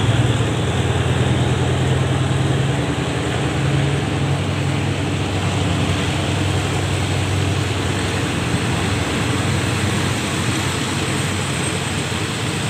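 Diesel locomotive engines of a double-headed passenger train running steadily. A deep, even engine hum sits over a continuous rushing noise.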